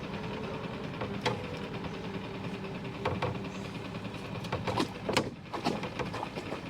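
A small boat motor running steadily, with several sharp knocks and clunks, most of them in the middle and second half.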